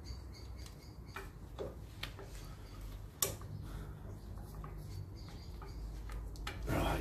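Light metallic clicks and ticks, scattered a second or so apart, with one sharper click a little after three seconds in. They come from bolts and lock tabs being fitted by hand to a Land Rover Series brake backplate and swivel hub. A brief rustle follows near the end.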